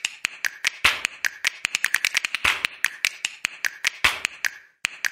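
A rhythmic, edited-in percussion bed of sharp snaps and clicks, about six a second with a louder snap about every second and a half. It breaks off briefly near the end, then starts again.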